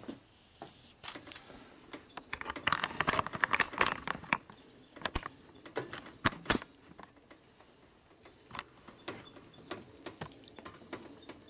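Metal clicks and clinks from parts being handled on a Harley-Davidson Evolution engine case on a steel bench, with a quick run of rattling clicks a couple of seconds in and two sharper knocks a little later.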